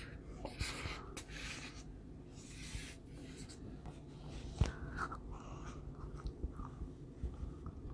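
Pencil or pen-type drawing strokes scratching across paper, several quick swishes in the first three seconds. A sharp tap comes about four and a half seconds in.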